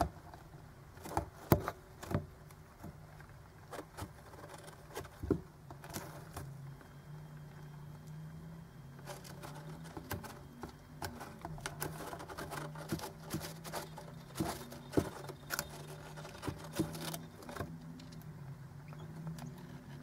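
Soft, irregular clicks and taps, scattered unevenly, over a low steady hum.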